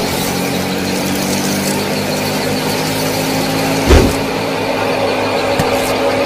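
A small motor running steadily at an even pitch, with one loud low thump about four seconds in.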